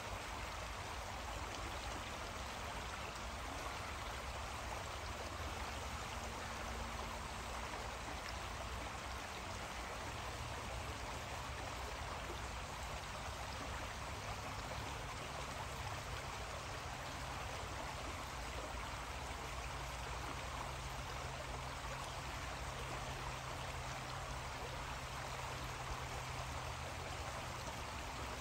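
Creek water running steadily, an even rush with no breaks, with a faint low rumble beneath it.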